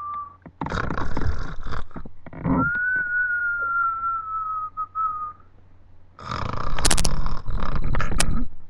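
Snoring that alternates rough snorts with a long, thin whistle. A short, rough snore comes about a second in. Then a high whistle sinks slightly in pitch for about three seconds, and after a brief pause a longer, louder, fluttering snore follows near the end.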